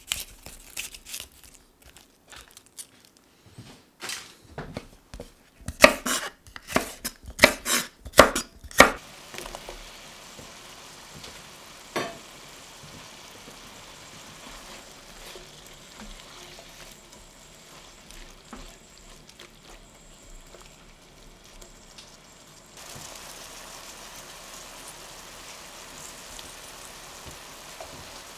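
A red bell pepper being handled and cut on a wooden chopping board, with a quick run of sharp knife strokes a few seconds in. From about ten seconds in comes a steady sizzle from a stainless pan of sliced red onion, red wine and red pepper strips cooking on the hob, growing a little louder about two-thirds of the way through.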